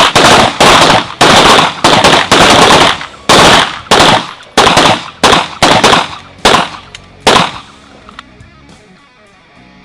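A volley of gunfire from several shooters on a firing line: well over a dozen sharp shots at uneven, sometimes overlapping spacing, thinning out and stopping about three-quarters of the way through. Faint guitar music comes in near the end.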